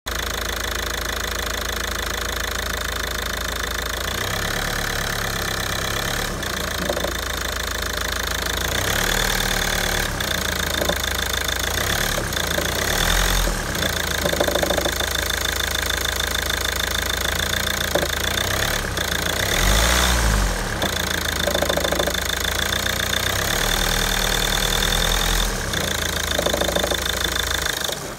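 A 2009 Ford S-Max's 2.0 TDCi four-cylinder diesel engine idling, with a few short knocks along the way, then switched off near the end. It is the knocking noise the owner cannot identify.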